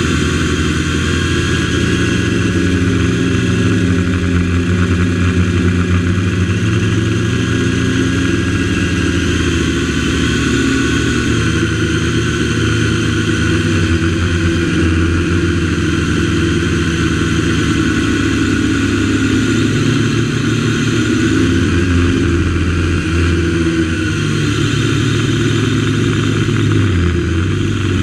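MJX X101 quadcopter's motors and propellers buzzing loudly, heard close up from the GoPro mounted on the drone. The pitch of the several tones wanders up and down as the throttle changes in flight.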